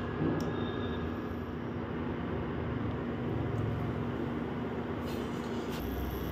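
Induction cooktop running with a steady whirring hum from its cooling fan, holding one steady low tone throughout.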